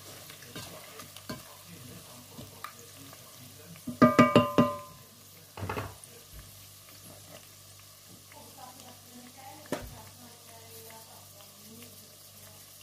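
Pork pieces frying in a pot, with a wooden spatula stirring them. About four seconds in comes the loudest sound: a quick run of ringing knocks against the pot, followed by a short scrape.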